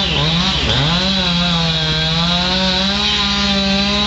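Two-stroke chainsaw running at high revs. Its pitch drops sharply twice in the first second and then recovers, as the saw bogs down under load in the wood.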